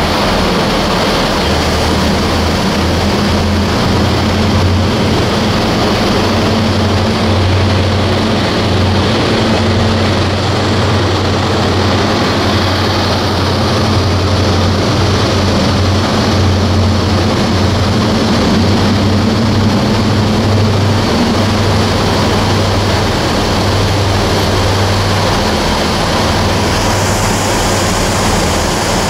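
High Speed Train (InterCity 125) diesel power cars running under power as the train pulls away along the platform, a loud steady low drone.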